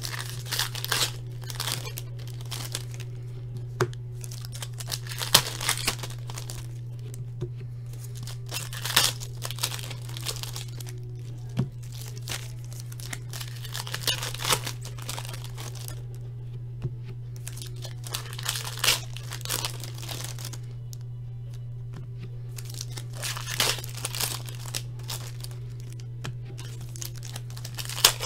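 Foil hockey card packs being torn open and crinkled by hand: repeated, irregular bursts of tearing and crackling over a steady low hum.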